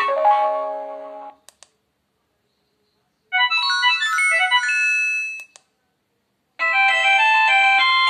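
Built-in SMS alert tones of a myPhone Hammer mobile phone, previewed one after another through its speaker. A bright electronic melody dies away in the first second and a half, followed by two short clicks. A quick many-note jingle plays for about two seconds, then another click. A denser chiming tone starts near the end.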